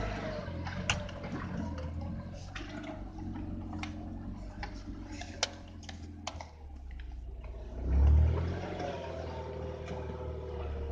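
A Jeep engine running, with a steady low drone whose pitch wavers. Several sharp clicks and knocks come in the first six seconds, and there is a brief loud low thump about eight seconds in.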